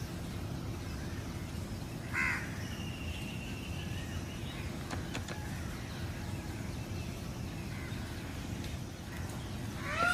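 A crow caws once, about two seconds in, over a steady low rumble of outdoor background noise, with fainter bird calls around it.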